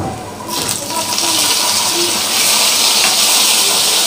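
Sliced bitter gourd tipped into hot oil in a kadai, setting off a loud sizzle about half a second in that swells and then holds steady.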